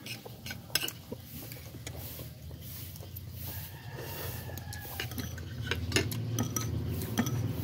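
Metal spoon and fork clinking against a plate and soup bowl during a meal. The sharp clicks are scattered, with more of them in the second half, over a steady low hum.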